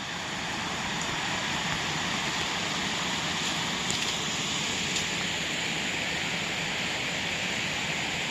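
Mountain stream water rushing steadily over rocks, a constant even rush.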